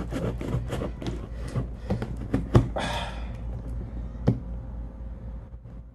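A cardboard shipping box being opened and handled: a string of light taps and knocks on the cardboard, a short rustle about three seconds in, and a sharper knock a second or so later.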